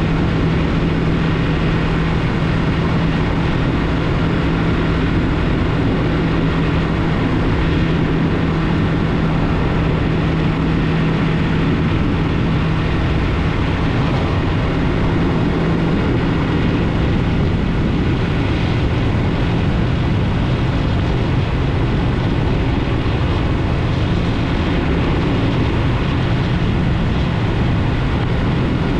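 Yamaha MT-03 motorcycle engine running at a steady speed along a dirt trail, with rushing road and wind noise; its note drops a little about halfway through.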